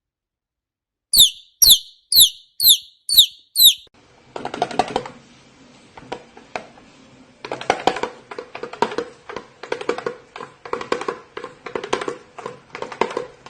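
A small bird gives six sharp chirps in quick succession, each sweeping downward in pitch, about two a second. Then come rapid scratchy clicking and chattering in irregular bursts over a faint steady hum.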